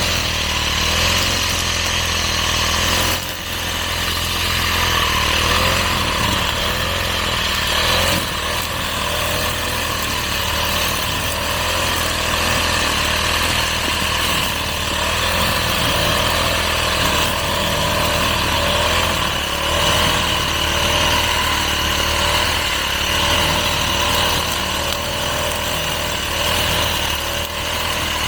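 Petrol grass cutter's small engine running steadily at working speed while cutting grass and weeds, its pitch wavering slightly under load, with a brief drop in level about three seconds in.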